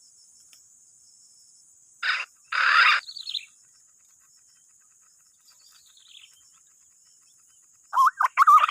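Insects shrilling steadily in the background, broken by two short loud rustling bursts about two seconds in and a few faint falling bird chirps; near the end a loud warbling bird call starts and keeps going in quick wavering phrases.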